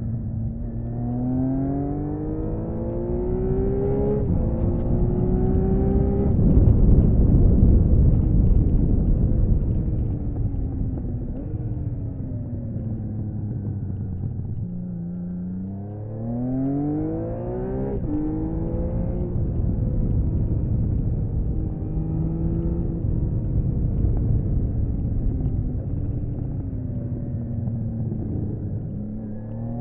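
1979 Honda CBX 1000's air-cooled inline-six on its stock exhaust, heard onboard. It pulls up through the gears, the note climbing and dropping back at each upshift, eases off for a few seconds midway, then accelerates through the gears again. Wind rushing over the microphone is loudest from about six to ten seconds in.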